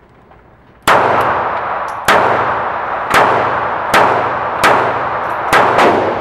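Taurus PT738 TCP .380 ACP pistol fired in a string of about seven shots, roughly one a second, with the last two close together, each shot ringing on in the echo of an indoor range.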